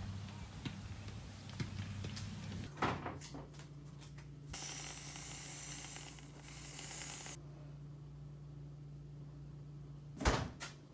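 Aerosol whipped-cream can hissing as it sprays for about three seconds in the middle, with a few light knocks before it and a louder thump near the end.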